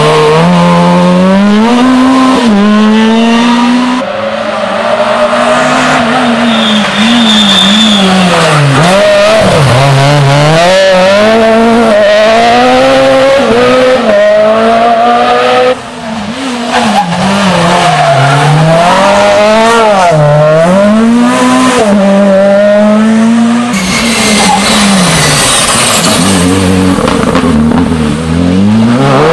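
Rally cars at full throttle on a special stage, engine revs repeatedly climbing through the gears and dropping off as they lift and brake for corners. The sound cuts abruptly from one car's pass to the next several times.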